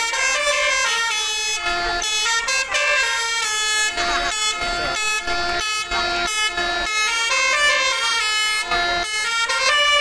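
Basuri telolet musical bus horn playing a fast melody, one horn note after another in quick steps of pitch.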